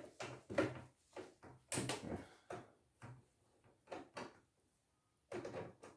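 Scattered short plastic knocks and clicks of a screwdriver and hands working on the white plastic housing of a CNY E900 embroidery machine as its casing screws are undone to open it, with a brief lull about five seconds in.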